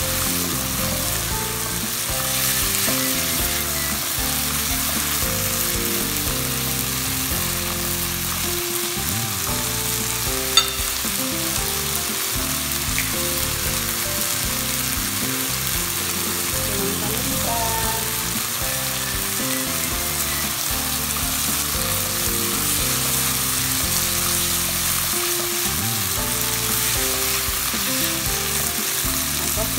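Ground beef with onions and tomatoes sizzling steadily in a nonstick frying pan as a silicone spatula stirs it, with one sharp tap about ten seconds in.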